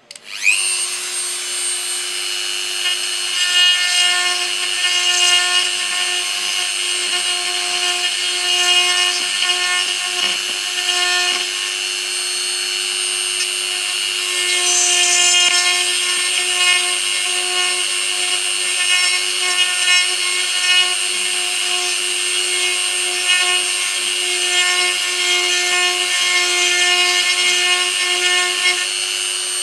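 Handheld rotary tool switched on and spinning up within a moment, then running at a steady speed with a high whine and a grinding rasp as its bit drills a burr hole into a 3D-printed plastic skull model.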